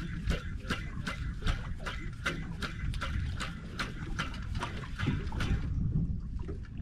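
Spinning reel clicking in a steady rhythm of about three clicks a second as a jig is worked with rod jerks and quick turns of the handle; the clicking stops about six seconds in. Water slapping against the boat hull runs underneath.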